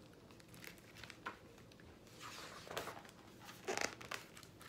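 Faint paper rustling and crinkling from a hardcover picture book being handled and opened, in a few short bursts, the loudest near the end.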